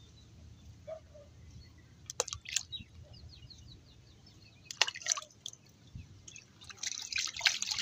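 Small water splashes and drips: a few short ones about two and five seconds in and a denser run near the end, as handfuls of homemade groundbait are dropped into the river beside the boat.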